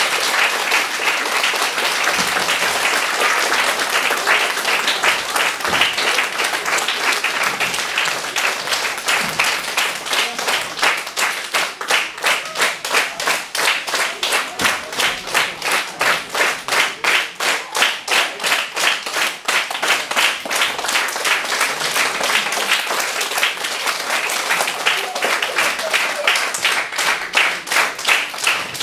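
Audience applause: dense, unsynchronised clapping at first, which after about ten seconds settles into steady rhythmic clapping in unison, a little over two claps a second.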